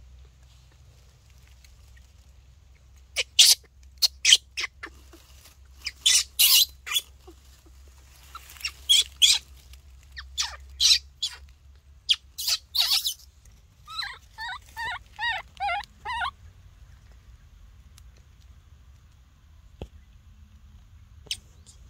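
Infant macaque calling close by: a string of short, sharp, high-pitched squeaks, then a quick run of wavering chirps lasting about two seconds.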